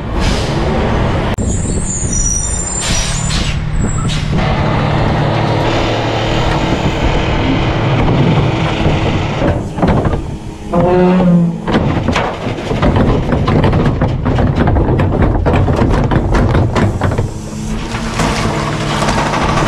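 Garbage truck running and on the move, its engine droning steadily, with high brake squeals about two seconds in, a short wavering whine around the middle and much rattling and clanking through the second half.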